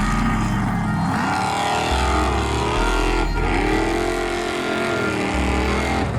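Formula Offroad car's engine revving hard, its pitch falling and rising several times, with a deep dip midway. A steady bass line of background music runs underneath.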